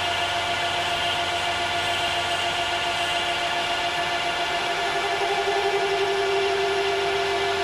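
Metal lathe running under automatic feed, the cutting tool moving into a metal piston workpiece: a steady machine hum with a few steady tones, one of which grows stronger about halfway through.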